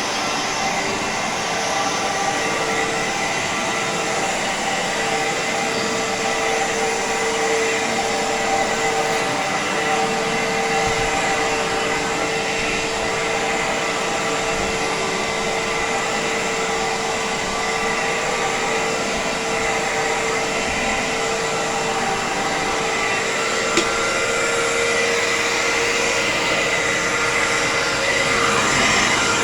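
Iona Fantom Fury 10-amp upright vacuum cleaner running steadily with a constant whine over its airflow noise while vacuuming carpet, with one brief click about 24 seconds in.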